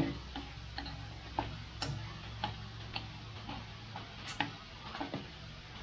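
Wooden chopsticks clicking and scraping against a metal wok while stir-frying beef, in irregular sharp taps about twice a second over a faint background haze.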